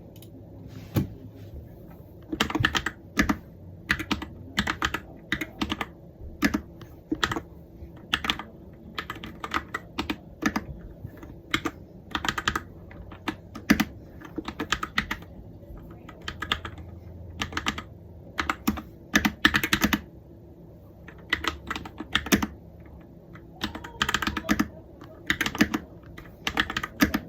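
Typing test on an RK61 mechanical keyboard fitted with new pre-lubed Akko Cream Yellow Pro switches: runs of key strokes in bursts with short pauses between them.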